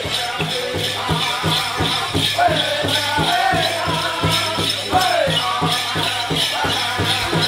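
Powwow drum group playing a contest song: a big drum beaten in a fast, even beat under high, sliding, falling singing. Dancers' ankle bells jingle along with it.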